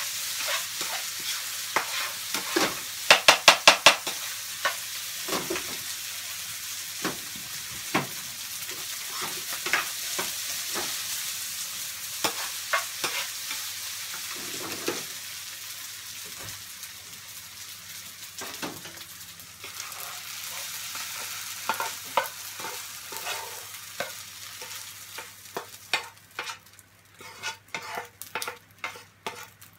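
Fried rice sizzling in a frying pan over a gas burner while a spoon stirs it, knocking and scraping against the pan, with a quick run of loud taps about three seconds in. Near the end the sizzle dies away and the spoon scrapes the rice out of the pan in a string of knocks.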